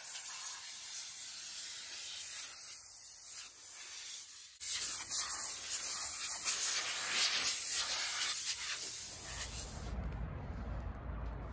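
Steady rubbing and scrubbing on a steel trailer frame, which gets clearly louder about halfway through. Near the end the scrubbing stops and a low rumble is left.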